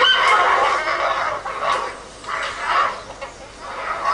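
Giant pandas calling during a fight between rival males: rough, harsh calls in bursts, one long call of about a second at the start, then several shorter ones.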